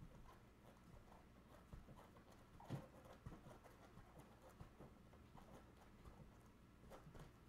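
Faint, irregular soft thuds and taps of a soccer ball being rolled and flicked by socked feet on a tile floor, with one louder knock a little under three seconds in.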